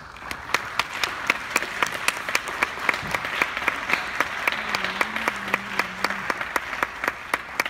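Audience applause breaking out suddenly at the end of a choral piece, with one clapper close by standing out at about four claps a second.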